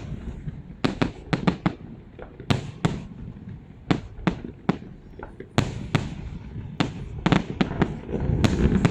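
Fireworks display: sharp bangs bursting at irregular intervals, about two a second, over a steady low rumble of echoing reports.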